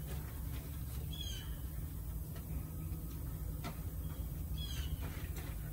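Two short, high bird chirps, about a second in and again near the end, over a steady low rumble.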